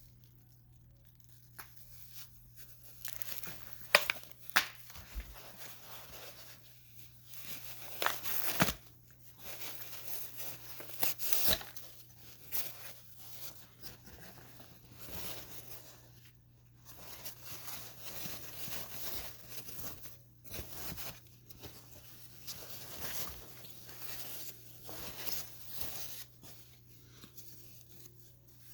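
Packaging being torn open and crinkled by hand in irregular spells, with a few sharp clicks and snaps among the rustling.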